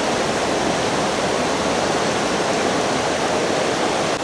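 River water rushing steadily, an even, unbroken noise of flowing current.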